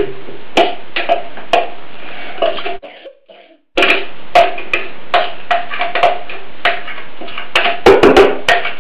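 Spoon scraping and tapping chopped greens and garlic out of a hand blender's plastic chopper bowl into its measuring beaker: a run of sharp knocks, one or two a second, with a cluster of louder knocks near the end. The sound drops out briefly about three seconds in.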